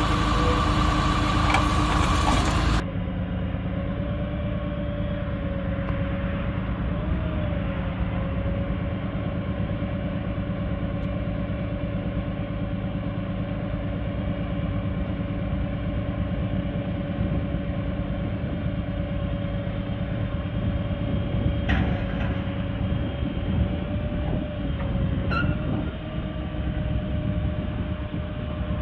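Truck's 6.7-litre Cummins six-cylinder diesel running steadily at idle, with a thin steady whine over it and two faint clicks near the end.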